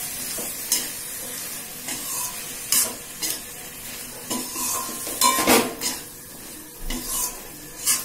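Metal spatula scraping and turning vegetables in a metal kadai, stroke after stroke with the loudest scrapes just past the middle, over a light sizzle of the frying oil.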